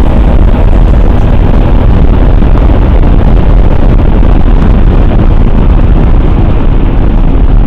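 Motorcycle ridden at speed: a steady, loud rush of wind over the microphone mixed with engine noise.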